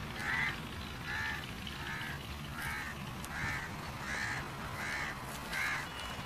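A crow cawing over and over in a steady series, about eight short harsh calls spaced roughly three quarters of a second apart.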